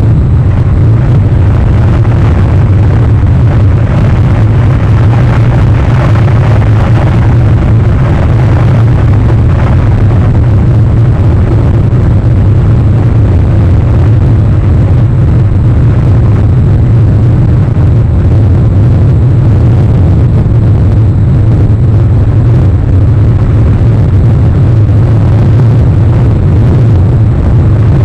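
Wind buffeting an outdoor microphone: a loud, steady low rumble with a rushing hiss above it, unbroken throughout.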